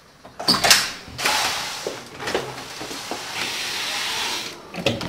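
A door handle and latch clicking as a glass door is opened, followed by a steady hiss for a few seconds.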